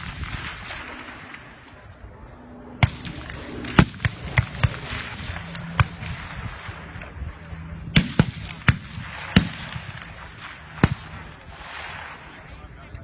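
Rifles firing on a range: about ten sharp shots from several rifles at uneven intervals, some in quick pairs.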